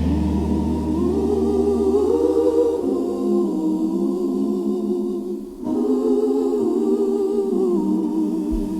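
Gospel choir singing long, held chords with no drums, over a low bass note that dies away about three seconds in; the voices break off briefly about five and a half seconds in, then swell again.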